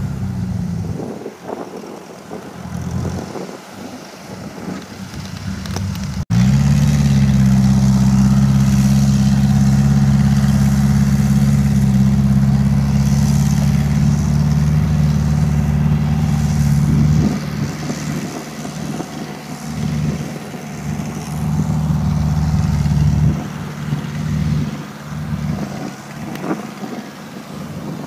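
Mitsubishi engine of a crawler-tracked rice-hauling cart running steadily as the loaded cart drives across the field, with an even pitch. The sound jumps abruptly louder about six seconds in, holds steady, then turns quieter and more uneven from about two-thirds of the way through.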